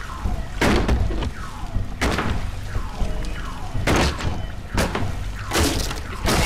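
A fire extinguisher being rammed against a glass-panelled door, about five heavy thuds a second or so apart.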